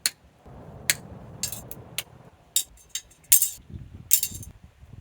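Hand snips clipping 3D-printed plastic BBs free of their printed bits, making a run of sharp plastic snaps and clicks, around nine of them at irregular intervals.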